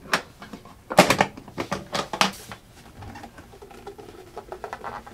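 Large spring-loaded latches on a heavy aluminum military equipment case snapping open: a string of sharp metallic clicks, loudest about a second in. Softer knocks and scraping follow as the lid is lifted off.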